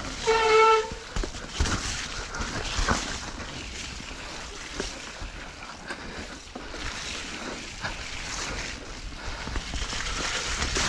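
Mountain bike rolling down a wet, muddy trail: steady tyre and wind noise with scattered knocks and rattles as the bike goes over rough ground. A short, high squeal sounds about half a second in.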